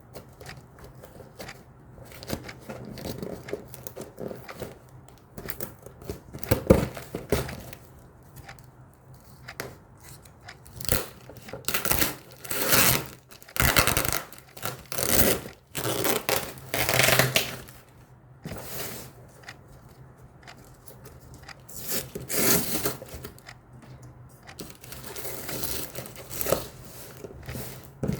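Packaging being opened by hand: irregular bursts of tearing, crinkling and rustling, loudest for several seconds around the middle.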